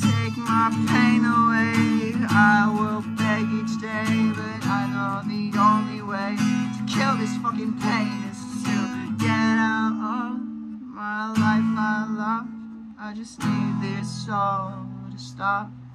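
Acoustic guitar, capoed, strummed in a run of chords.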